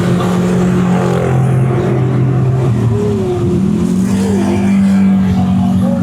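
A motor vehicle's engine running with steady road noise. Its low note steps up in pitch about three and a half seconds in, as the vehicle changes speed.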